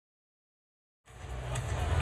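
Silence for about a second, then arena ambience fades in and grows louder: a strong low rumble under a steady hiss.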